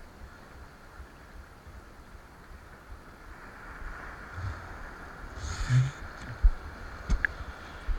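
Wind buffeting the microphone in low, uneven thumps over a steady hiss of ocean surf, with a brief louder rush about five and a half seconds in.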